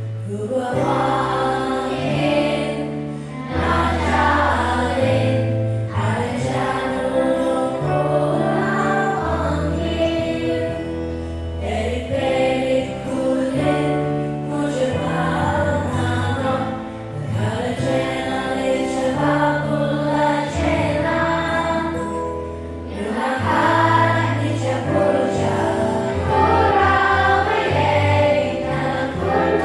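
A choir singing a song over an accompaniment of held low notes that change every second or two.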